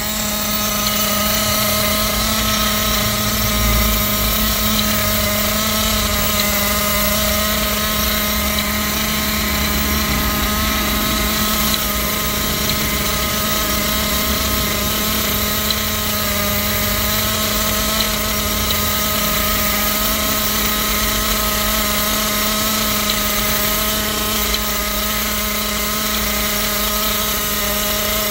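Kyosho Inferno Neo 3.0 nitro RC truggy's small glow-fuel engine idling steadily at a constant pitch, not revved.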